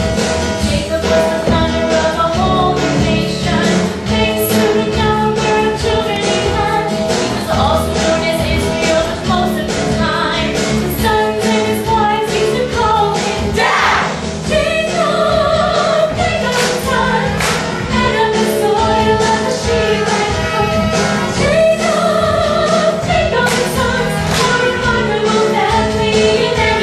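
Music with a group of voices singing in choir-like harmony over a steady beat.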